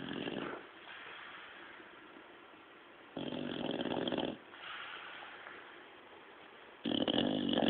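Bulldog snoring: two loud snores, each a little over a second long and about three and a half seconds apart, with quieter breathing between them.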